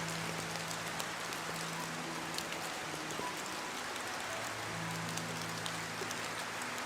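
Steady rain falling: an even hiss with scattered sharp drop ticks, over faint long-held low notes.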